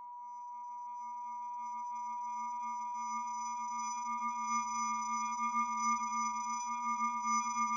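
A steady electronic drone of a few held tones, one clear high tone above a lower hum, slowly swelling in loudness.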